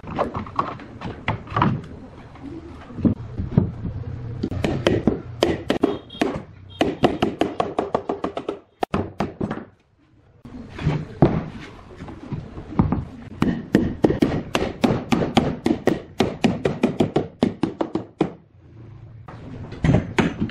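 Solid pine bed parts being knocked and tapped together in quick runs of sharp knocks, with a short break about nine seconds in.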